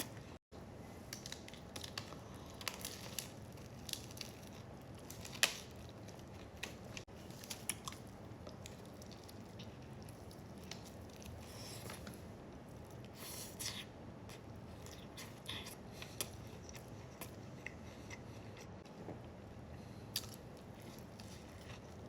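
A person biting into and chewing a sandwich close to the microphone: scattered short crunches and mouth clicks, irregular throughout.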